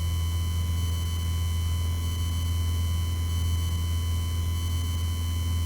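Steady drone of a Piper Warrior's four-cylinder Lycoming engine and propeller in a climb, heard inside the cabin, with a faint steady high electrical whine over it.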